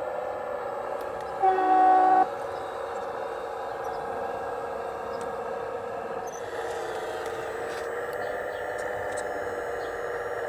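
RC model Case CX85RR rail-road excavator running with a steady whine that dips slightly in pitch about six seconds in. About one and a half seconds in, a short, loud horn toot sounds over it for under a second.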